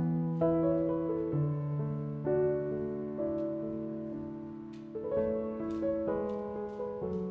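Background music: a slow, gentle piano melody of held notes, with a few faint clicks over it.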